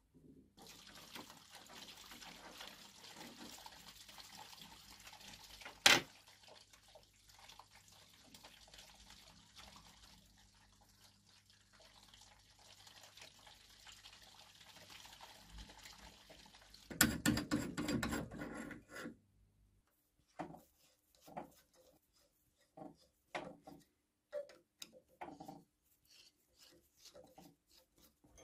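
Small steel lathe parts handled and fitted by hand: a faint hiss for the first few seconds, one sharp metallic click about six seconds in, a short rattle a little past the middle, then scattered light clicks and taps.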